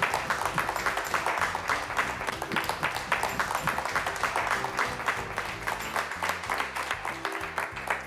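A group of people clapping steadily, with background music underneath.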